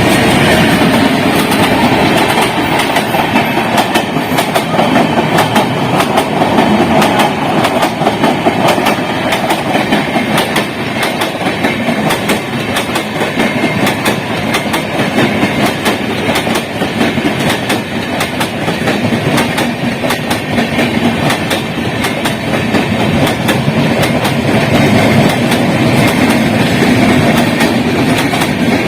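Rajdhani Express passenger train rolling slowly into a station: a steady rumble of the coaches, with the wheels clicking repeatedly over the rail joints.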